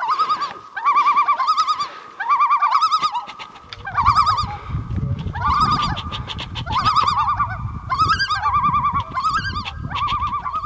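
Repeated trilling animal calls, a short warbling phrase about once a second. From about four seconds in, a low rumbling noise runs underneath.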